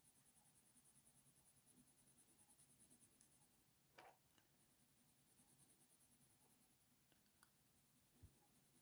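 Faint, quick strokes of a Faber-Castell Polychromos coloured pencil on hot press watercolour paper, about five a second, in two runs with a short pause and a single tap about four seconds in.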